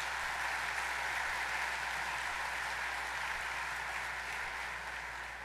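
Audience applauding: a steady patter of many hands clapping that eases off near the end.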